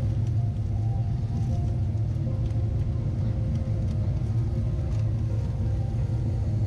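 Steady low rumble of airliner cabin noise inside a Boeing 777-300ER on descent: airflow over the fuselage and its GE90 engines running.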